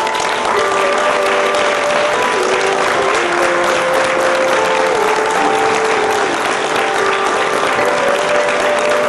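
Audience applauding steadily, with music playing a slow melody of long held notes over the clapping.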